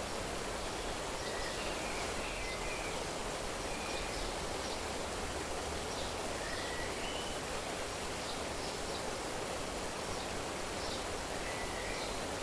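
Nature ambience: a steady rushing noise with faint, short bird calls and chirps scattered through it every second or two.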